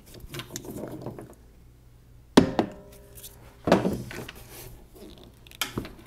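Small clicks and scrapes of a screwdriver loosening a hose clamp on a golf cart's fuel line, then two sharp knocks from the tool and parts being handled, one about two and a half seconds in (the loudest) and one a little over a second later.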